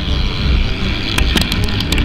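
Motocross bike engines running hard as a pack of dirt bikes races through a corner, with a run of sharp clicks in the second half.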